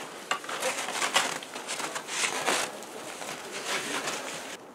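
Skis and boots scraping and crunching in snow in irregular bursts as a skier scrambles back up onto his skis.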